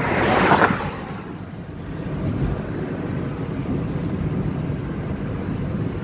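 Car driving along a city road, heard from inside the cabin: a steady low rumble of engine and tyre noise, with a brief louder rush of noise in the first second.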